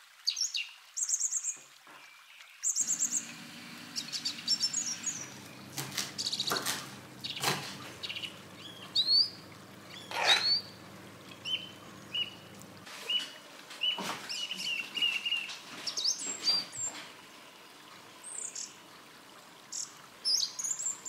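Birdsong: several birds chirping and whistling, with many short rising calls and brief trills. A low steady hum runs beneath the first half and stops about two-thirds of the way through.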